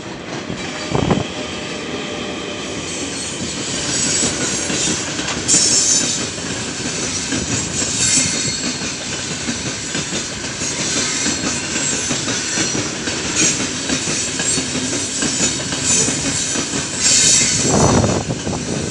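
A loaded freight train of open gondola wagons rolling past close by: continuous wheel-on-rail rumble and clatter, with a high-pitched squeal from the wheels at times.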